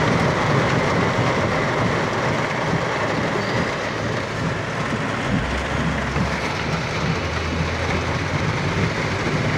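Steady rushing noise from inside a car's cabin as it drives through a flooded street in heavy rain: the tyres pushing through deep water, with rain on the windshield and roof.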